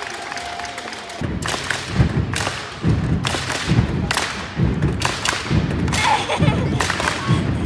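Spectators stomping and clapping in time in the stands: a run of even thumps, about two a second, starting about a second in.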